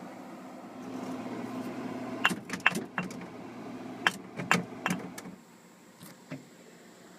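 A quick run of sharp clicks and clinks from about two to five seconds in, with two faint clicks near the end, as the refrigerator's interior fittings are handled. A steady low hum runs underneath.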